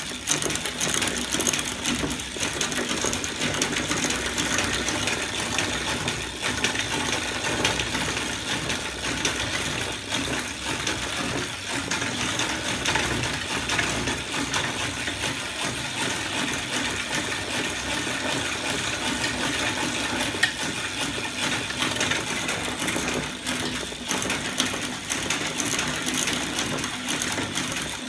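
Homemade lever-arm and roller-chain drive rig on a bicycle running steadily, its aluminium linkages, chains and sprockets making a fast, even mechanical clatter.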